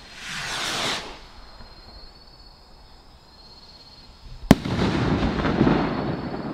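Firework rocket launching with a short whoosh that falls in pitch, then a single sharp bang about four and a half seconds in as it bursts, followed by a couple of seconds of crackling as the stars fall.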